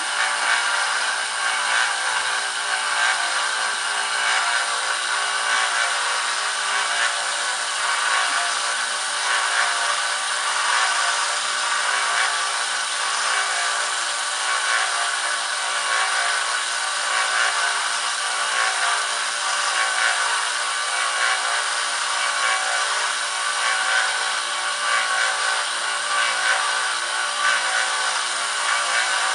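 A 1x30 belt sander runs steadily with a high whine while a sword blade's edge is ground against its belt.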